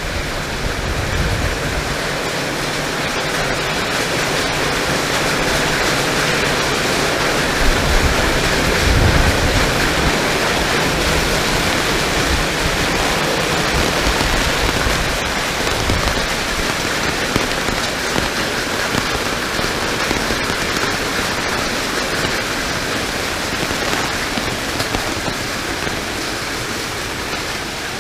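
Rain pouring down steadily in a tropical storm, with gusts of wind buffeting the microphone as low, uneven rumbles that are strongest about eight to ten seconds in.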